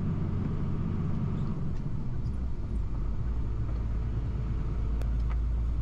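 Steady low drone of a truck's engine and tyres heard from inside the cab while driving on a wet road.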